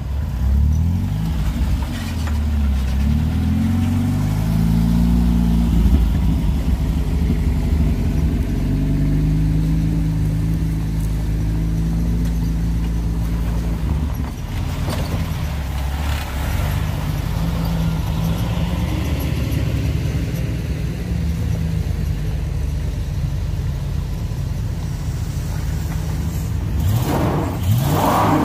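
A Jeep Wrangler YJ's engine revving hard up a rutted dirt hill climb while its tyres spin. The revs rise and fall, then hold high for long stretches. Near the end a second engine, a Ford Bronco's, revs up sharply as it takes the climb.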